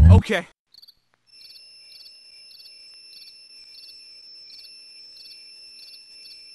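Music cuts off just after the start, then crickets chirp in night-time ambience: steady high trilling with a short chirp repeating about twice a second.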